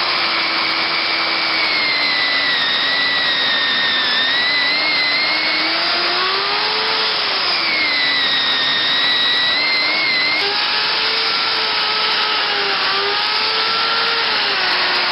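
A woodworking power machine running loudly and steadily, with a whine that slowly drifts up and down in pitch.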